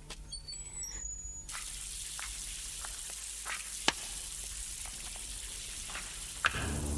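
Running water spraying in a steady hiss that starts abruptly about a second and a half in, with scattered drips and splashes and two sharper clicks, one near the middle and one near the end.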